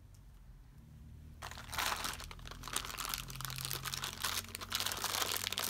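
Clear plastic bag crinkling and rustling as it is handled by hand, starting about a second and a half in.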